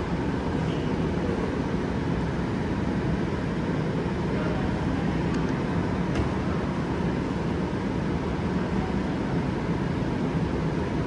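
Steady low background noise with nothing distinct in it, and two faint clicks about halfway through.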